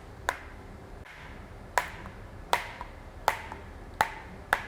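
A hammer tapping on the gear of a Jarvis SHC circular saw to push it up off its shaft: six sharp taps about three-quarters of a second apart.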